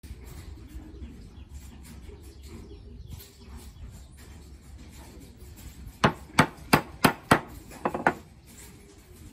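Wooden knocks as a round wooden spindle is tapped home into a hole in a chair rail: five sharp knocks about a third of a second apart, then a quicker cluster of three softer ones.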